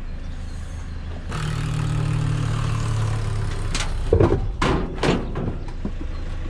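A vehicle engine running steadily, growing louder for a couple of seconds after about a second in, then several sharp clunks in quick succession.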